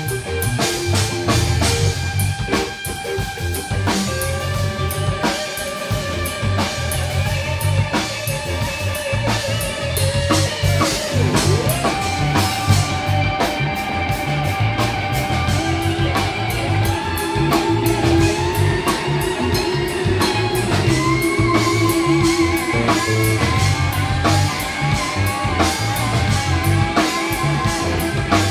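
Live blues band playing an instrumental passage: an electric guitar lead with bent, wavering held notes over a steady drum-kit beat and a second electric guitar.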